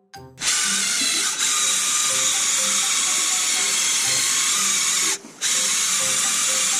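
Cordless impact driver spinning an SK11 Afro-kun Junior nylon abrasive wheel against the aluminium crankcase of a Honda Today AF61 scooter engine: a steady, high grinding whir as it scrubs off corrosion. It stops for a moment about five seconds in, then starts again.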